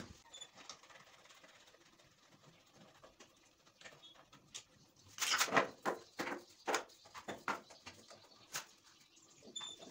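Flexible plastic sink waste pipe rubbing and squeaking as it is pushed and twisted onto the basin outlet, in a cluster of short rustles and creaks about halfway through, after a quiet start.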